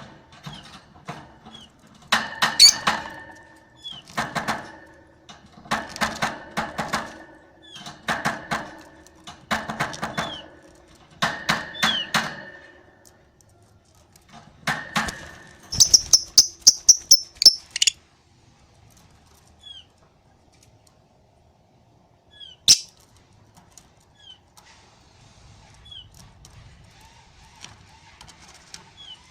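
Lovebird (Agapornis) chattering in rapid raspy bursts, about one every two seconds, then a quick run of high piping notes, after which it goes mostly quiet apart from short chirps and a single sharp click.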